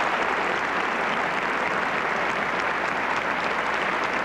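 A large theatre audience applauding steadily, a dense, even clapping.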